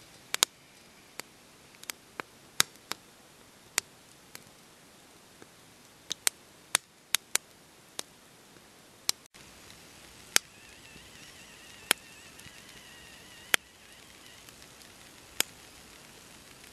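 Wood fire crackling: sharp, irregular pops and snaps from burning sticks among glowing embers, sometimes several close together, sometimes a second or more apart.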